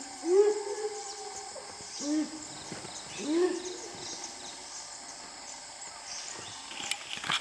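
Dholes giving their short whistling hoot calls, three times, each call rising in pitch and then holding. A few sharp clicks come near the end.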